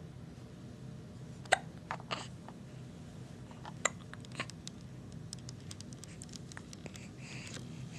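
Hiccups: two sharp hiccups about two seconds apart, with fainter catches and small clicks around them.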